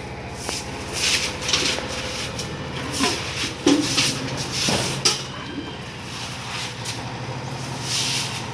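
Broom sweeping water across a wet concrete floor: irregular swishing strokes, with two sharp knocks near the middle, over a steady low hum.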